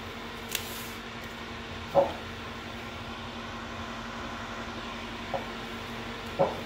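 Four brief knocks and clicks from handling things on a workbench, the loudest about two seconds in, over a steady low hum.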